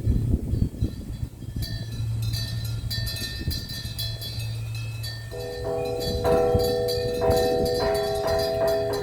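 Temple bells ringing: light, high-pitched tinkling strikes, then from about five seconds in a run of repeated bell strokes that ring on at a few steady pitches. A low steady hum underneath stops at about the same moment.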